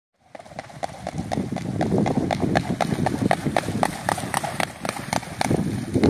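A swan running across the water to take off, its feet slapping the surface in a steady run of about four slaps a second. The slaps grow louder over the first couple of seconds and stop about five and a half seconds in.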